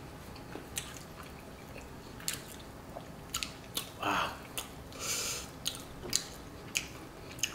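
A person chewing a mouthful of butter chicken made with bone-in tandoori chicken, with wet smacking and clicking mouth sounds at irregular intervals. There is a short vocal sound about four seconds in.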